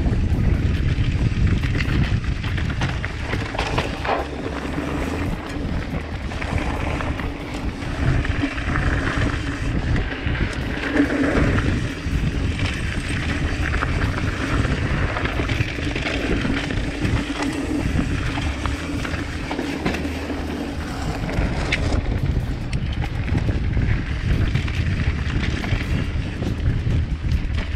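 Wind buffeting a chest-mounted GoPro while a mountain bike rolls fast down a dirt trail, a continuous low rumble broken by many small knocks and rattles from the bike over the ground.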